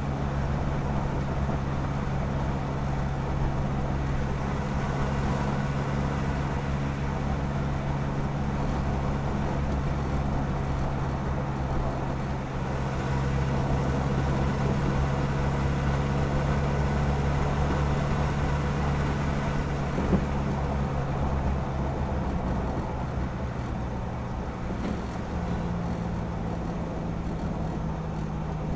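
Stock exhaust of an Isuzu KB300's 3.0-litre four-cylinder turbo diesel, heard from under the pickup while driving: a steady engine drone over road rumble. It grows a little louder about halfway through, and near the end the note shifts as it eases off slightly. One brief tick comes about two-thirds of the way in.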